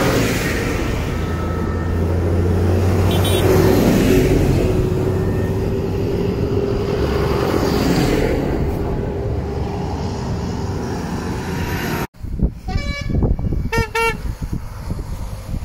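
Diesel tractor engines running as a line of tractors drives past, one after another, sped up to double speed. After a cut about twelve seconds in, a vehicle horn toots several short times.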